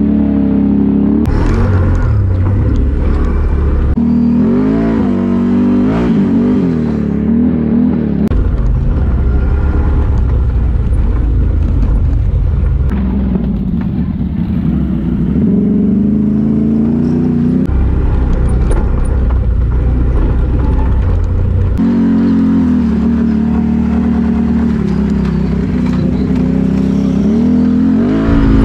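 Can-Am Renegade XMR 1000R's V-twin engine with an SLG Sniper slip-on exhaust, heard from the rider's seat at trail speed. The throttle is worked up and down for the first several seconds, then the engine runs more steadily, with further changes in pitch.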